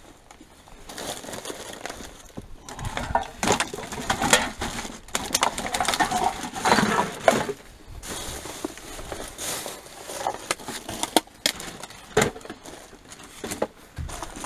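Rummaging through bagged rubbish in a dumpster: plastic bags rustling and crinkling, with irregular clicks and knocks as items are handled and moved.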